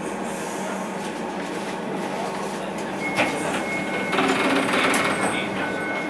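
DLR B2007 Stock light-rail train running on its track, heard from inside the car as a steady rolling rumble. From about three seconds in, a thin, steady, high-pitched squeal joins it and holds.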